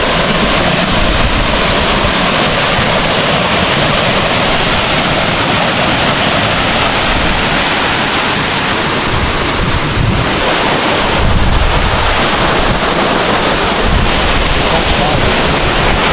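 Loud, steady rush of a waterfall's falling water, with wind buffeting the microphone in gusts, heaviest about eleven seconds in.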